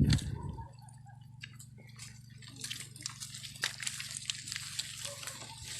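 Scattered faint clicks and drips over a low steady hum, growing denser toward the end.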